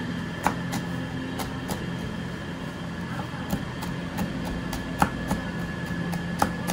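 Cleaver blade striking a wooden cutting board while chopping green chillies: irregular, sharp knocks, about a dozen in all, the loudest about half a second in, about five seconds in and near the end. Under them runs a steady hum with a high whine.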